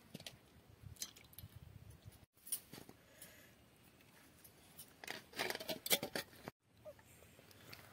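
Faint clicks and scrapes of a steel spoon against a stainless steel plate as curry is served onto rice, busiest near the end, broken twice by brief silent gaps.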